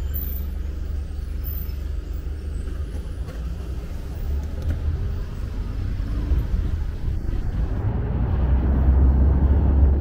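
Car engine and tyre noise on a wet road while driving uphill. A steady low rumble grows louder over the last couple of seconds.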